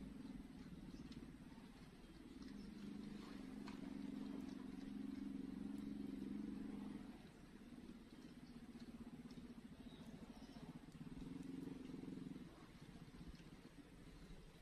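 Faint drone of a distant small engine with a steady pitch, loudest in the first half, dipping about halfway through and swelling again briefly before easing off.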